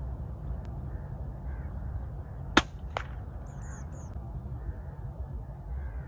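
A single shot from an Edgun Matador R3M PCP air rifle, a sharp crack about two and a half seconds in, followed a moment later by a fainter second crack. A few short high bird chirps come just after.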